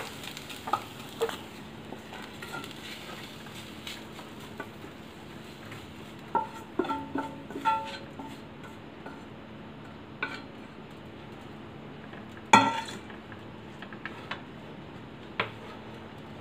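Stainless steel pan and plate clinking and ringing as a tempering is tipped out of the pan and mixed through dhokla pieces with a wooden spatula. Scattered light clinks, a run of ringing clinks around the middle and a single loud clank about twelve seconds in.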